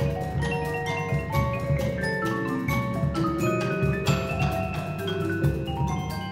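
Percussion ensemble playing: marimbas and a vibraphone in fast mallet strokes with ringing held notes, over a low timpani and drum part.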